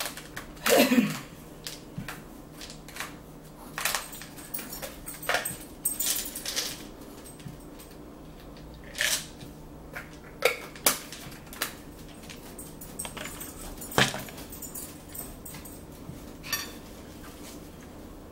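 Scattered clicks, taps and rustles of things handled at a dinner table, including a small plastic bottle being worked open, with the loudest knocks about a second in and near fourteen seconds.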